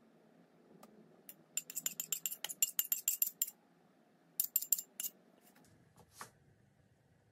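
Metal spoon scraping and knocking against glass, clinking quickly for about two seconds, about eight clinks a second, then a second short flurry of clinks, and a single ringing clink near the end.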